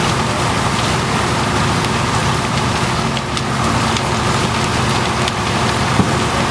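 A fully involved wooden house fire burning: a steady rushing noise with scattered sharp crackles and pops, and a faint steady hum underneath.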